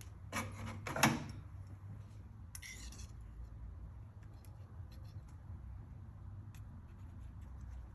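Hands working on a car engine bay: a couple of sharp clicks or knocks in the first second, the louder one about a second in, then a brief rattle near three seconds and scattered faint ticks, over a steady low hum.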